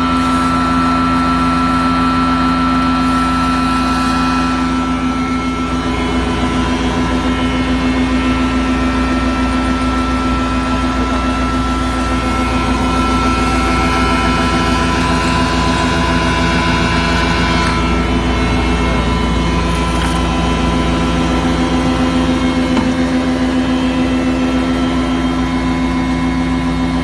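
Pin mill leaf grinder with its dust collector running steadily: a loud, even machine hum with a steady whine over a low rumble.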